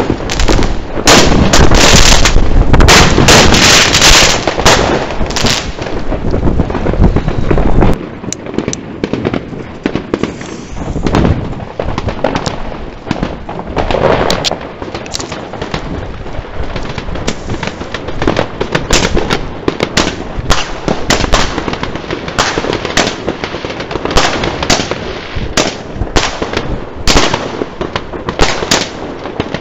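Fireworks going off: a dense run of loud bangs and crackling for the first eight seconds or so, then a steady stream of separate cracks and pops from many shells and crackers.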